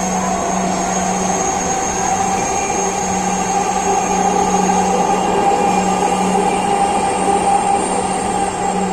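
Dhaka Metro Rail (MRT Line 6) train running at speed, heard inside the carriage: a steady running noise with several steady whining tones, growing a little louder around the middle.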